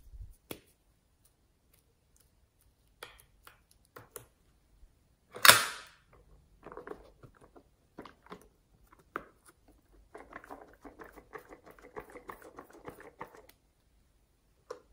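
Small hard plastic toys handled by hand: scattered clicks and one loud, sharp plastic snap about five and a half seconds in, then a few seconds of dense crackling near the end.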